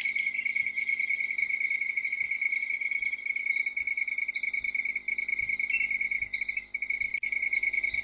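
Crickets trilling steadily at night, a high, fast-pulsing chorus picked up by a volcano-watch CCTV microphone, with faint low thumps about once a second.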